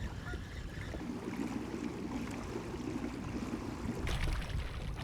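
Wind rumbling on the microphone over water sloshing against a kayak, with a short louder rush of water about four seconds in.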